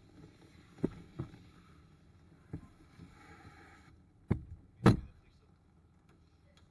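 About five dull knocks and thumps against a stainless-steel dog-wash tub as a wet dog is bathed, the loudest a heavy thump about five seconds in, over a faint low background.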